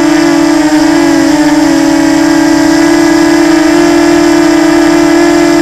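FPV quadcopter's electric motors and propellers whining loudly and steadily, picked up by the onboard camera, the pitch wavering slightly as the throttle shifts.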